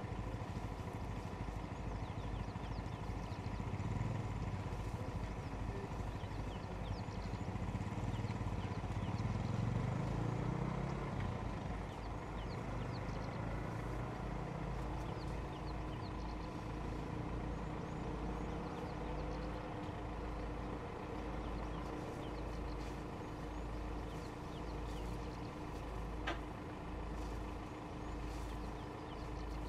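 Vehicle engine idling, a steady low rumble that swells for a few seconds near the middle, with faint high chirps over it.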